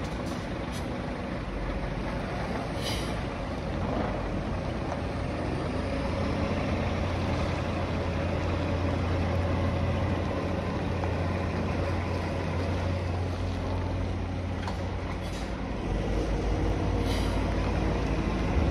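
Scania R420 tractor unit's diesel engine running steadily at low revs as the truck drives slowly. Short hisses from the air brakes come about three seconds in and again near the end.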